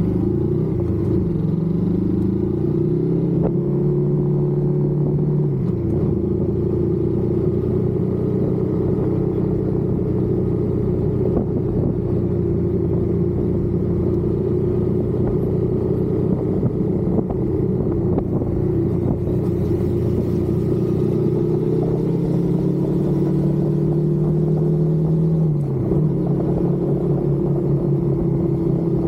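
Suzuki Inazuma motorcycle with its stock exhaust running on the road. The engine note falls in the first few seconds, holds steady for a long stretch, then climbs and drops back sharply near the end.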